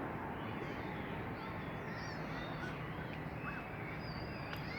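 Steady outdoor city hum with scattered short, high chirping bird calls; no firework bangs.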